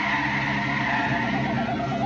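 Cartoon whirlwind sound effect: a howling rush of wind with a slightly falling whistle, over orchestral underscore with a held, wavering note that comes in about halfway through.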